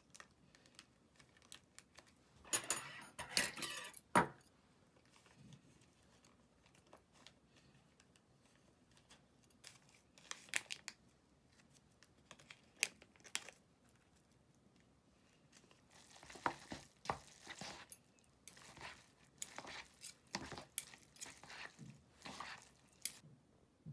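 Plastic sachets of an instant-noodle cup crinkling and tearing, with a burst about three seconds in. Then scattered clicks, and over the last several seconds a run of short scrapes and clicks as metal chopsticks stir the noodles in the paper cup.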